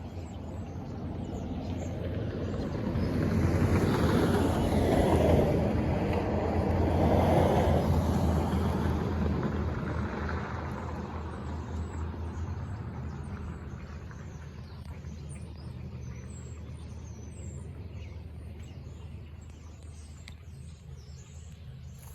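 Highway traffic: a vehicle passes, its rushing noise swelling a few seconds in and fading away over several seconds. A steady traffic hum follows, with faint bird chirps over it.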